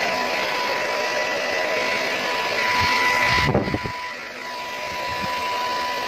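Hand-held hair dryer blowing steadily, its motor giving a constant high whine over the rush of air, used with a round brush on long hair. About halfway through, a brief louder gust buffets the microphone, and then the sound drops a little quieter.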